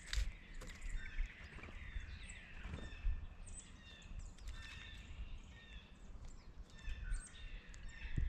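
Small songbirds calling in short, repeated notes, with scattered sharp clicks and taps mixed in, over a faint low rumble.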